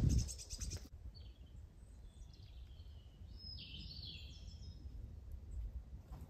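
Wild birds calling: a few short chirps and sliding call notes over a low wind rumble. A rustling noise cuts off abruptly about a second in.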